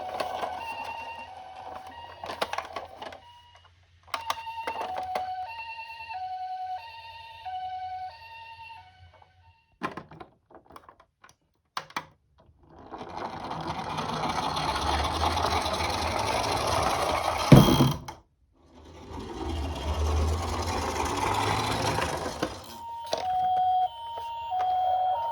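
Japanese-style hi-lo ambulance siren alternating between two notes, with a few clicks. Then die-cast Tomica minicars roll down a slope, each run a rising rolling rumble, with one loud knock between the two runs, and the hi-lo siren returns near the end.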